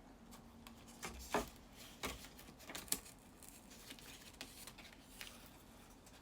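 Faint handling noises: a few soft clicks and light rustling as a die-cut sandwich of cutting plates, metal die and cardstock is pulled apart after a pass through the die-cutting machine.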